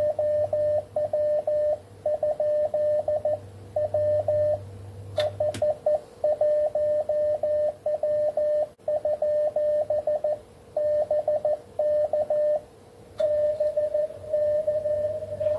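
Morse code (CW) tones from an Icom IC-7300 transceiver, a single pitched tone keyed on and off in dots and dashes at a steady sending speed. A fainter steady lower tone runs under it. A click comes about five seconds in, and near the end the keying gives way to an almost unbroken tone.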